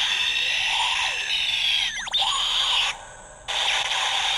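Electronic special-attack sound effects from a DX Bugster Buckle toy belt's small speaker, set off by pressing its B button: a harsh, hissing effect with sweeping tones, a sharp falling glide about two seconds in, a brief break near three seconds, then more of the effect.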